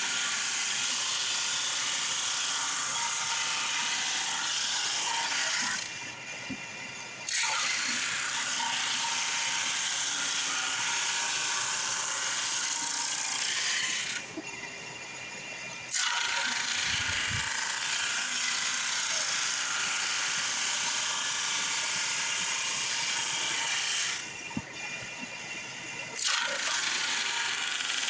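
Drum sander and shop vac running steadily while a white ash board is sanded. The noise dips briefly three times, about 6, 14 and 24 seconds in.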